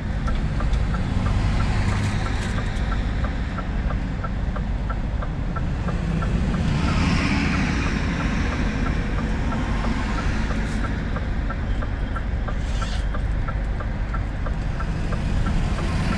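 Scania S500 truck cab: a steady low rumble of engine and road noise, with a light regular ticking about two to three times a second and a swell of hiss about halfway through.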